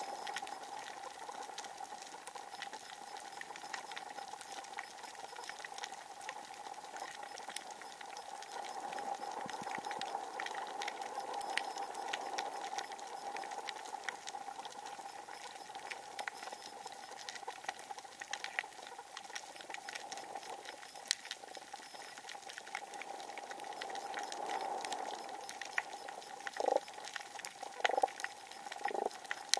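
Underwater coral-reef ambience: a dense scattering of sharp clicks and crackles over a steady hum. A few short low knocks come near the end.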